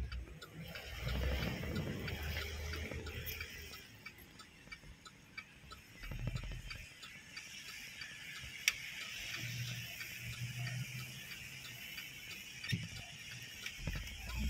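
Inside a car's cabin on a wet road: scattered light ticks over a steady hiss, with a low rumble from the car and tyres that comes and goes.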